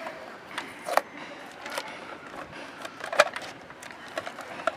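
Clear plastic packaging tray and cardboard box being handled while unboxing: scattered crinkles and clicks, the sharpest about a second in and just after three seconds in.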